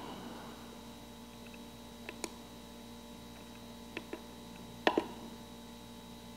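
Light clicks of the controls on a Jeti DS-24 radio transmitter as its menus are stepped through: three quick pairs of clicks, the loudest pair about five seconds in, over a faint steady hum.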